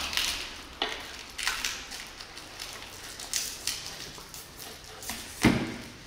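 Scattered clicks, taps and small knocks of hard plastic and metal parts and a screwdriver being handled while a scooter's handlebar mirror and front fairing bracket are fitted, with one louder knock near the end.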